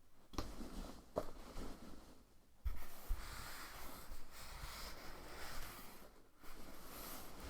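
Soft scratching and rustling of objects handled close to a sensitive microphone, with a few light clicks. It starts about a third of a second in and pauses briefly around six seconds in.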